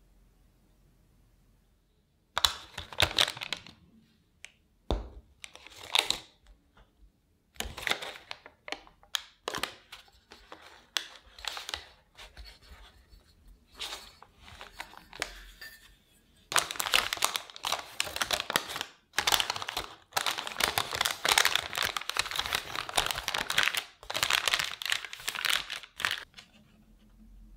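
Parchment baking paper crinkling and rustling in irregular bursts as it is handled and peeled away from a baked cheesecake, becoming a nearly continuous crinkling over the second half.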